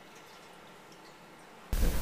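Faint water running into a toilet bowl as a flush dies away. About three-quarters of the way through, a much louder steady hum and hiss cuts in suddenly.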